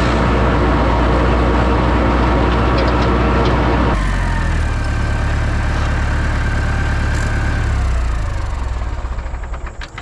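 Tractor engine driving a Woods rotary mower deck, running at speed, then throttled down about four seconds in with a falling pitch, and dying away near the end.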